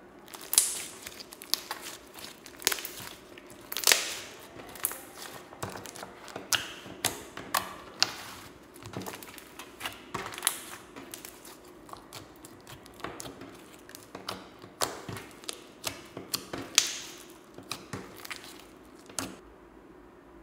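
Slime being squished and stretched by hand: irregular sticky clicks and pops, several a second, starting just after the beginning and stopping a little before the end.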